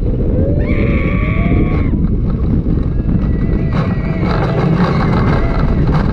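Wind rushing over a roller coaster's onboard camera microphone as the train runs, with a rider letting out a long scream about a second in and more yelling near the end.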